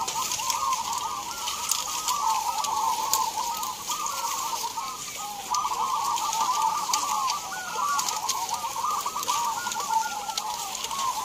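Many caged zebra doves (perkutut) cooing at once: a dense chorus of overlapping short rolling coos with no break.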